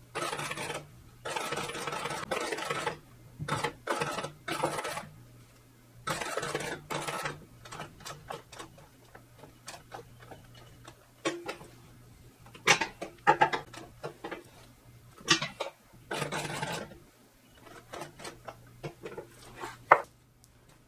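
Single-needle post-bed industrial sewing machine stitching a patch onto a cap in several short runs of rapid stitching, each about a second long. In between come separate clicks and knocks as the work is handled and the handwheel is turned by hand, over a faint low hum.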